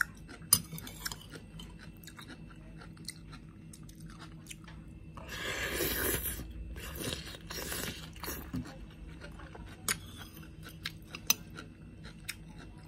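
A person chewing and crunching grilled meat close to the microphone, with scattered wet mouth clicks and a louder stretch of crunching about five to eight seconds in.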